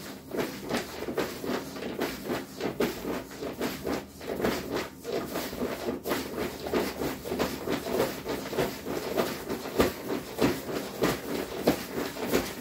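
Small hand-squeezed air pump inflating an Exped Megamat 10 LXW self-inflating sleeping pad through its intake valve. It makes rhythmic whooshes of air, one after another, stroke by stroke, as the pad firms up.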